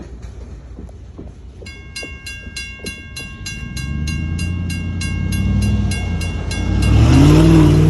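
A railroad crossing bell starts ringing about two seconds in, about four strikes a second, while the crossing gates lower. An approaching train's low rumble builds under it and becomes the loudest sound in the last second.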